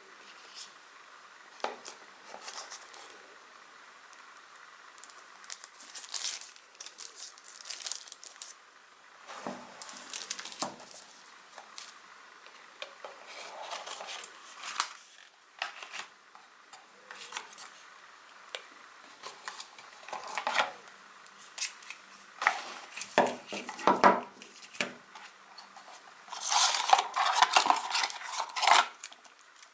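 Unpacking a smartphone box: scattered clicks, taps and rustles of cardboard and plastic parts being handled, with a longer crinkling of plastic wrap near the end.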